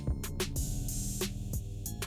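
Background music with a drum beat over sustained bass notes.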